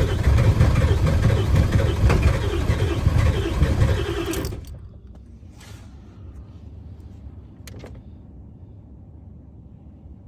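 Ford 7.3-litre diesel engine, loud and uneven, on a vehicle with a hard-starting problem. It stops abruptly about four and a half seconds in, leaving a low background with a couple of sharp clicks.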